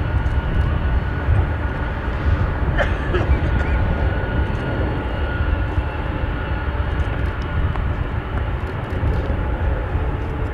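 Boeing 747-400 freighter's four jet engines running at low thrust as it taxis and lines up: a steady low rumble with a faint high whine.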